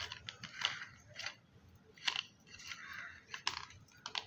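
A plastic pump-sprayer head being screwed onto a plastic bottle. It makes a few irregular scratchy clicks and scrapes of plastic on plastic.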